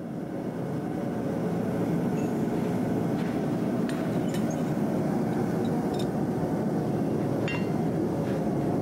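Gas forge burners running with a steady rushing roar, with a few faint metal clinks as the hot blade is handled on the anvil.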